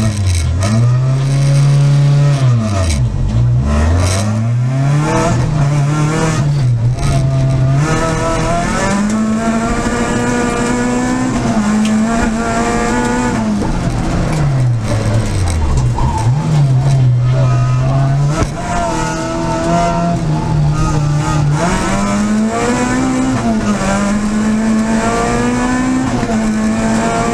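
Peugeot 306 Group A rally car's four-cylinder engine heard from inside the cabin, revving up and dropping back repeatedly as the car is driven through the gears, with deep falls in revs about three seconds in and again about sixteen seconds in.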